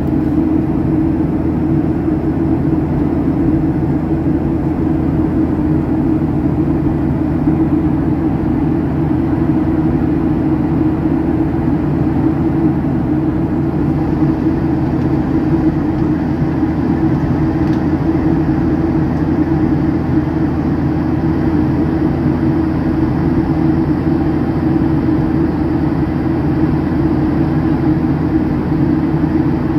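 Airliner cabin noise during the climb after takeoff: the low, steady drone of the engines and rushing air heard from inside the cabin, unchanging throughout.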